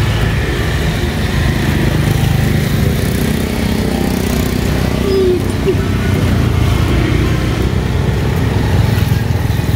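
Steady low engine-like rumble of motor traffic or a small motor, over oil sizzling in a frying pan as an egg-filled martabak fries.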